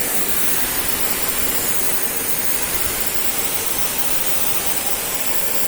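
Steady, loud hissing noise, even throughout.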